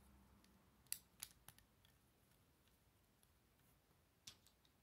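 Small plastic clicks of Lego bricks being handled and pressed together: three in quick succession about a second in, and one more near the end, over near silence.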